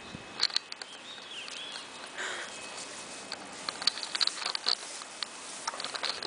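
Irregular patter of small rustles and clicks: dogs and a person moving about on grass.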